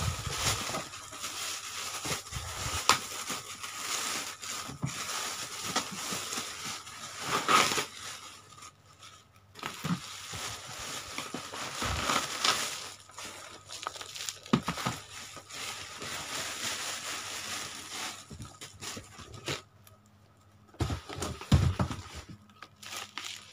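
Cardboard box flaps and packing paper rustling and crinkling as a parcel is unpacked by hand, in uneven spells with sharper crackles, pausing briefly about nine seconds in and again near the end.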